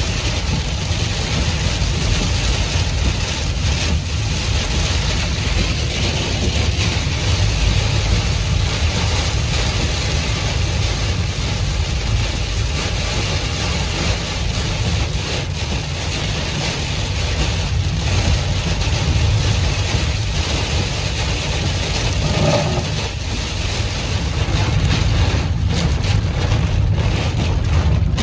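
Heavy rain beating on a car's windshield and body over the steady rumble of the engine and road, heard inside the cabin.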